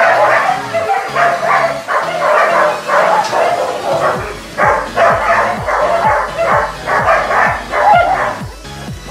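Dogs barking repeatedly, over background music whose bass beat comes in about four seconds in.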